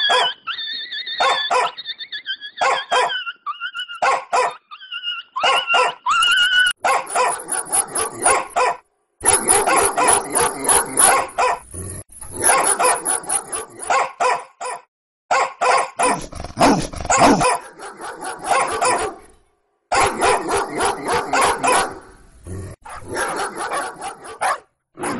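Dogs in a fight: high whining and yelping for the first few seconds, then a dense run of barks and snarls that breaks off abruptly a few times.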